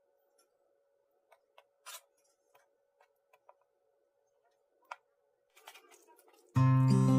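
A few scattered light clicks and taps over a faint steady hum, the loudest about two seconds in. Near the end, background music with strummed acoustic guitar starts abruptly and is the loudest thing heard.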